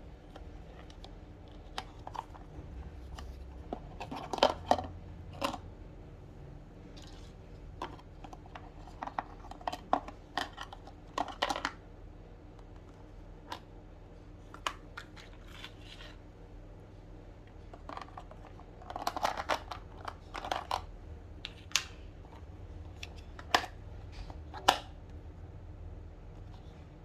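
Scattered small clicks, taps and short rustles of a toy handbag set and its packaging being handled, with busier clusters of handling a few times and two sharp taps near the end.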